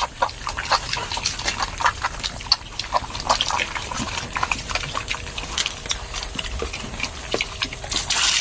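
Pigs eating wet feed, with a steady run of irregular wet smacks, slurps and chomps. Near the end a rush of running water starts.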